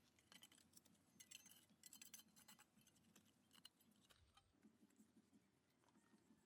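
Near silence with faint, irregular light clicks and taps scattered throughout.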